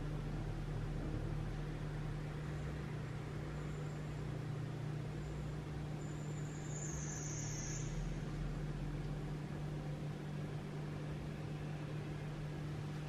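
Steady low hum under an even hiss, with a brief faint high hiss about seven seconds in.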